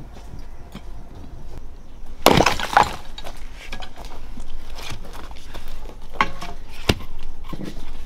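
A hoe scraping and chopping into dry, gravelly dirt, with a loud crunching scrape about two seconds in and lighter scrapes and knocks after it. A dull thud comes near the end as a wooden log is stood upright on the ground.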